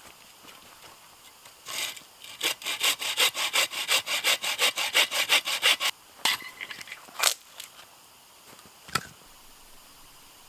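Hand saw cutting firewood in quick back-and-forth strokes, about six a second, for roughly three and a half seconds, followed by a few sharp cracks and knocks as the wood is handled.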